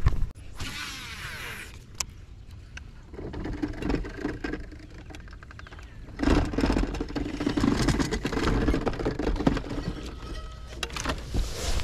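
Bow-mounted electric trolling motor running with a steady hum that grows louder about six seconds in. Near the start there is a short whir that fits a baitcasting reel's spool spinning out on a cast.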